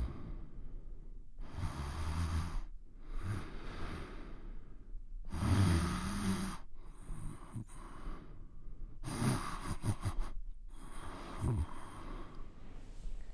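A man snoring in his sleep, about six drawn-out snores in slow succession.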